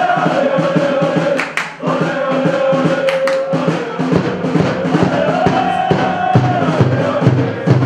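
Football supporters singing a chant in long held notes, with an evenly spaced drumbeat joining from about five seconds in.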